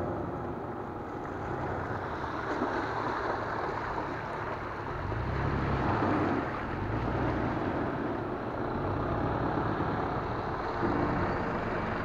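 Four-wheel-drive vehicle's engine running under a steady rushing noise, with a low engine tone swelling briefly about halfway through.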